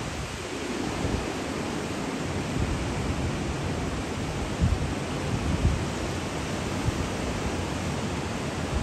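Steady rushing noise of ocean surf breaking, with wind on the microphone adding a few brief low bumps partway through.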